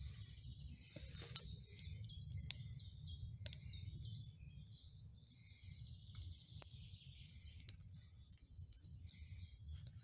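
Wood campfire crackling with irregular sharp pops, the loudest about two and a half seconds in, while birds give short chirps in the background over a low steady rumble.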